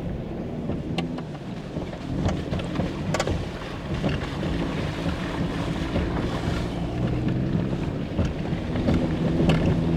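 Off-road vehicle engine running steadily at low trail speed, with tyre and road rumble and a few sharp clicks and knocks from the rough trail.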